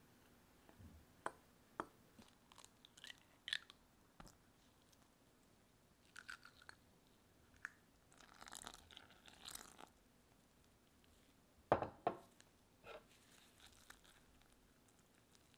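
Metal spoon scraping and stirring dry flour in a glass bowl, with sparse light clicks. About eight to ten seconds in comes a soft, noisy rush as egg and water go in, and around twelve seconds a few sharp clinks of the spoon against the glass, the loudest sounds here, before stirring the wet mix.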